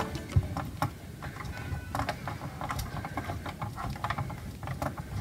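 Screwdriver turning the captive screw that fastens a plastic speaker strobe housing to its mounting bracket: a run of irregular small clicks and scrapes.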